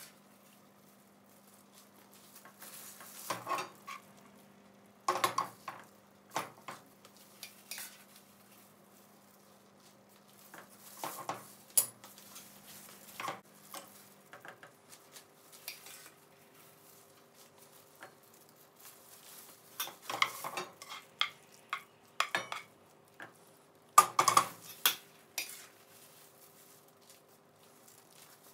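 A large kitchen spatula scraping and knocking against a cooking pot and frying pan in scattered short bursts, as spoonfuls of rice and stew mixture are scooped and layered into the pot.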